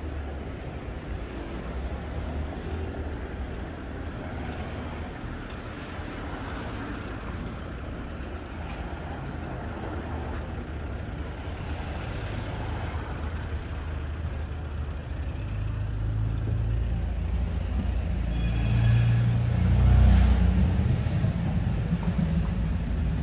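City street traffic: a steady rumble of cars passing. It swells near the end as a vehicle goes by close, the loudest moment, with a brief high-pitched tone just before it.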